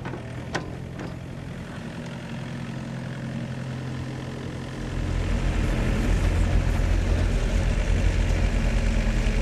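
Excavator's diesel engine running steadily, getting noticeably louder and heavier about five seconds in. A single sharp knock sounds about half a second in.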